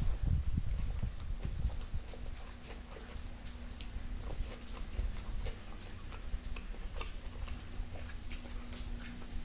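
Close-miked eating: chewing and lip-smacking of fried chicken, many small wet clicks at an uneven pace, with heavier low chewing thumps in the first second or two.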